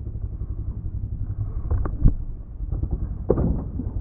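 Kawasaki KX450F's single-cylinder four-stroke engine running at low revs on a rocky climb. Sharp knocks and clatter come about two seconds in and again a little after three seconds, as the bike strikes rocks.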